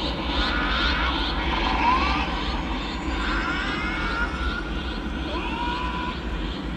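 Large outdoor crowd murmuring and chatting, many voices overlapping into one another, over a steady low rumble.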